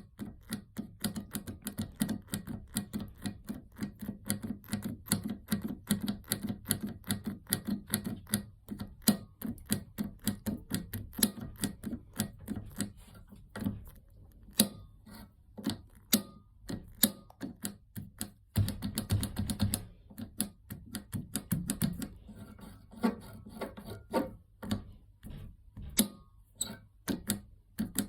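Rapid, irregular clicks, taps and knocks of small hard parts and tools being handled while a urinal flush valve is put back together.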